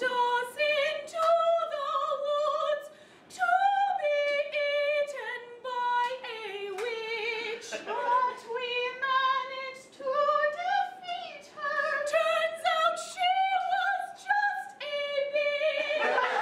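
A woman singing a melody unaccompanied, in a string of held notes that step up and down, with laughter breaking in at the very end.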